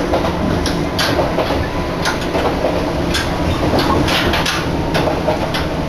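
Abukuma Express electric train running, heard from inside the carriage: a steady rumble of wheels on the track, broken by irregular clicks and knocks, with wind buffeting through an open window.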